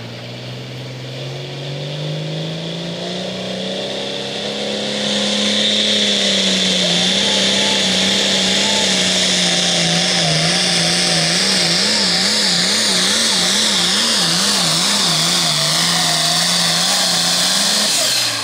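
Turbocharged diesel pulling tractor engine run up to full throttle on a pull. Its pitch climbs over the first few seconds, then holds high and loud with a strong hiss above it. In the second half the pitch wavers up and down about twice a second, as the engine is loaded and unloaded under the hopping tractor, and it drops off sharply near the end as the throttle is cut.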